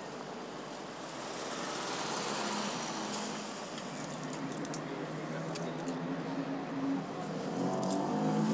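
Coins clinking as they are tipped out of a leather purse into a hand and counted: a few small metallic clinks in short clusters from about three seconds in, over steady background noise.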